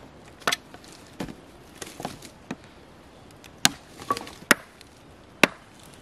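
A khukuri chopping a dry stick laid across a log: about eight sharp chops at an uneven pace, the loudest three in the second half.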